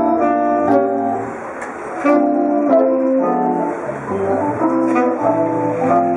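Instrumental background music led by plucked guitar, with bass notes underneath and a quick-changing melody.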